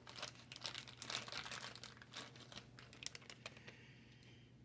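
Faint crinkling of toy-car packaging being handled: quick, irregular crackles that die away near the end.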